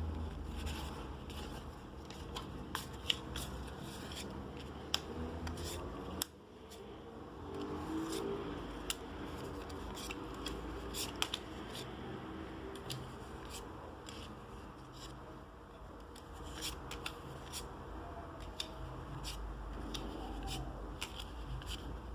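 Magic: The Gathering cards and their packaging being handled and opened by hand: many short clicks, snaps and scrapes, over a steady low hum. The level drops suddenly about six seconds in.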